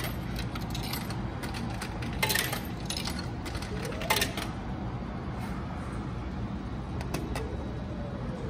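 Coins dropping into the coin slot of a retro ramen and udon vending machine, with a clink about two seconds in and another about four seconds in. Near the end a lighter double click comes as the noodle button is pressed and the machine starts its cooking cycle. A steady low hum runs underneath.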